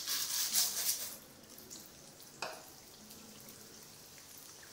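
Urad dal poured into hot sesame oil in a steel kadai sets off a loud sizzle for about a second, which dies down to a faint, steady frying hiss. A single sharp click comes about halfway through.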